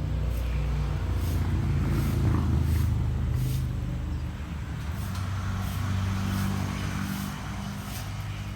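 A motor vehicle engine running, a low steady hum whose pitch shifts slightly, with faint short clicks now and then.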